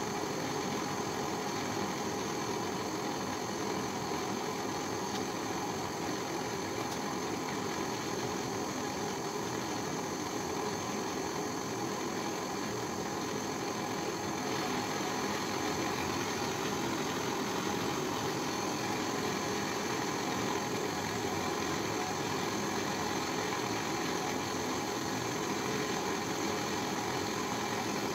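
Handheld gas torch burning with a steady roaring hiss as its flame plays into a crucible to melt silver, getting a little louder about halfway through.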